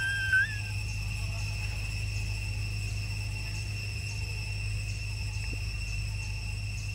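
A baby macaque gives one short rising squeak right at the start, over a steady high-pitched ringing drone and a low hum.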